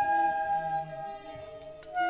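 Free improvisation for flute, trumpet and live electronics: a long held high note over quieter low tones, fading away about a second in, with a new note starting at the very end.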